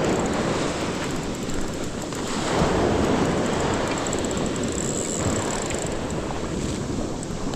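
Surf breaking and washing on the beach, mixed with wind on the microphone. It swells about three seconds in and eases off again.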